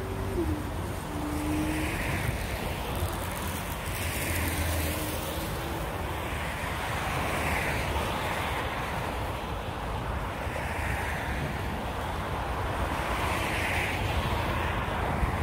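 Steady rushing noise of city road traffic, swelling softly every few seconds, with a faint engine tone that drops in pitch about half a second in.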